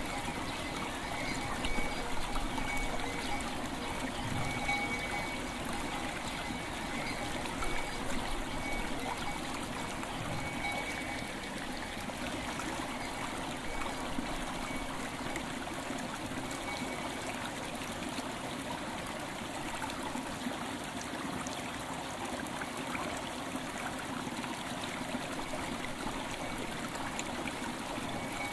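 River water flowing steadily over stones, a continuous trickling stream. Light bell tones ring out now and then through the first half and die away.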